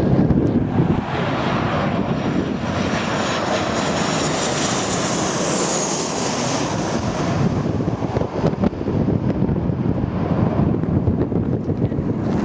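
Airliner passing low overhead on its landing approach: a steady engine roar, with a high whine that climbs and then falls away about halfway through.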